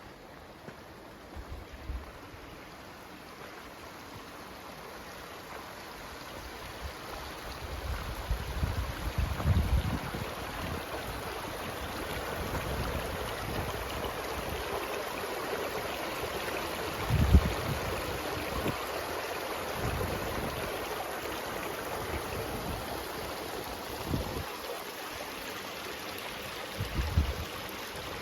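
Rushing water of a mountain stream, growing louder over the first ten seconds, with several short low thumps of wind gusting against the microphone.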